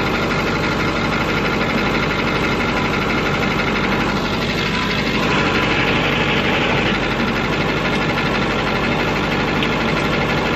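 Cummins diesel engine of an antique Brockway truck idling steadily. A brief hiss comes in about halfway through and fades after a couple of seconds.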